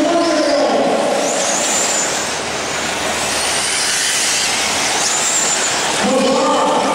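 1/8-scale radio-controlled truggies racing on a dirt track, their motors running hard. The motor noise is a steady wash with a couple of brief high whines that rise and fall as cars accelerate past.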